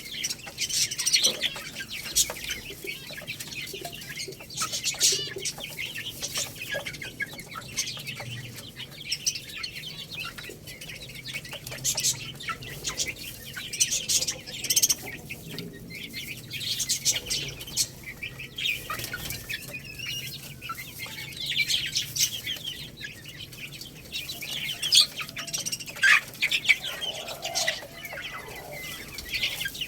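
Young chickens pecking at rice and chirping: a dense, uneven patter of short high clicks and peeps, with an occasional clucking call.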